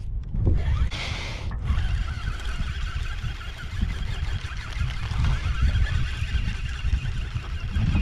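A tinny's outboard motor running steadily at trawling speed, with a faint steady whine over a low rumble.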